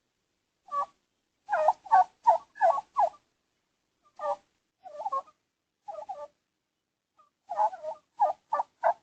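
Wild turkeys calling: short, sharp notes in quick runs of up to five or six, with a few single calls and short pauses between the runs, picked up by a doorbell camera's microphone.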